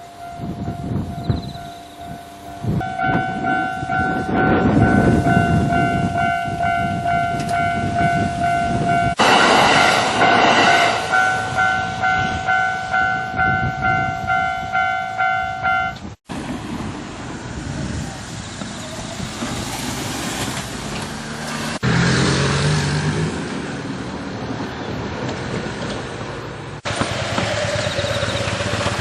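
Japanese level-crossing warning bell ringing in a steady, fast ding-ding rhythm while electric trains rumble past on the Kintetsu line. About halfway through the sound cuts off abruptly and the bell is gone, leaving only the running noise of passing trains.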